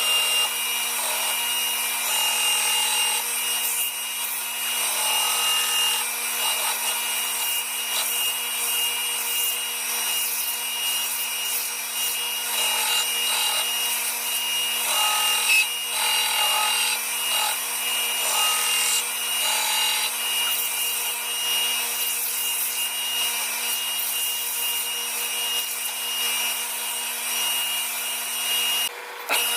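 Power sander running steadily with a constant hum, grinding with a rough rubbing hiss that swells and eases as the work is pressed on. The sound cuts out briefly near the end.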